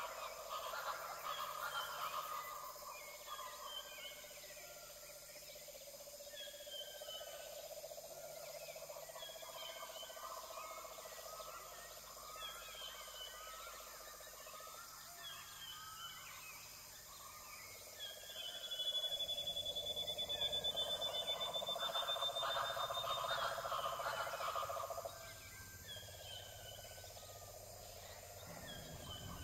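Wildlife documentary ambience played through a TV speaker: short chirping animal calls repeating about every second, over a steady hum. About two-thirds of the way in, a louder, rapidly pulsing chorus comes in for around six seconds, with a long thin whistle, then drops away suddenly.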